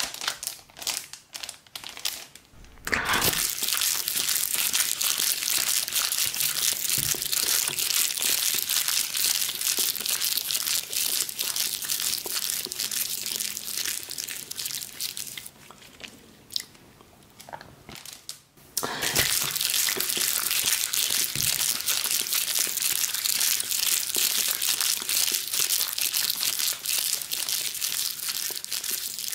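Clear plastic sheet crinkling and crackling as hands handle and press it, close to the microphone. A few light clicks come first, then dense crackling, which eases for a few seconds in the middle and then starts again.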